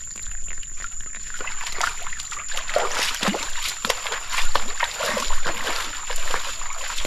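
Water splashing and sloshing in a stream, an irregular clatter of many small splashes that grows louder after about a second and a half.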